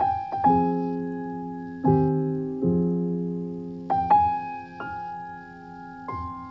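Slow solo piano music as a background track: single notes and soft chords struck every second or two and left to ring out.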